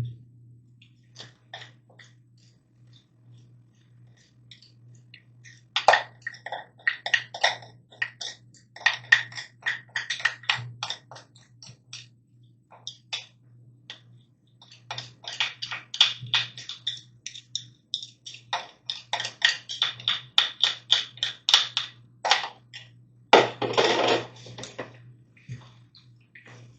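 Gloved hands mixing raw chicken wings in marinade in a bowl: quick, irregular wet squelches and slaps in bursts with short pauses. A low steady hum runs underneath.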